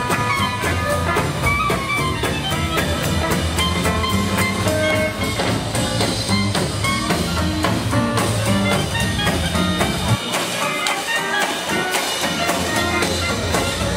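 Live swing band with drum kit, upright bass and guitar playing an up-tempo swing number with a steady beat. About ten seconds in, the bass and low end drop out for a couple of seconds, then come back in.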